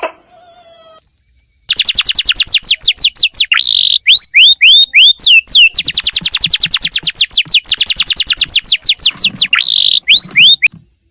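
A bird calling loudly in a fast train of sharp chirps, about eight a second, broken twice by a few longer down-slurred whistles. It starts about two seconds in, after a brief pause.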